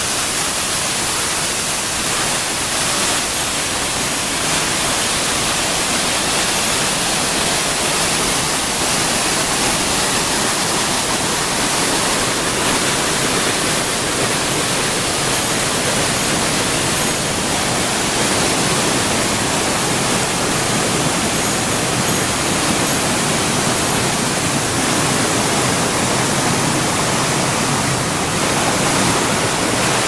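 Waterfall: water pouring in several streams down broad sloping rock slabs into a pool, a steady rush with no break.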